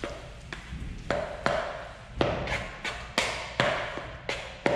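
Metal mixing spoon stirring and mashing guacamole in a plastic mixing bowl, knocking against the bowl about twice a second.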